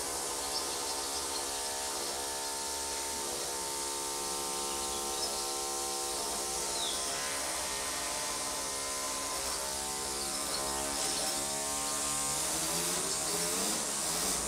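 Handheld electric disc grinder running on marble, a steady buzzing motor whine over a grinding hiss; its pitch wavers near the end as the load on the disc changes.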